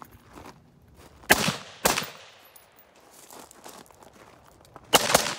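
AR-15 rifle shots: two shots about half a second apart, then another near the end, each a sharp crack with a short echo. Footsteps on gravel between the shots.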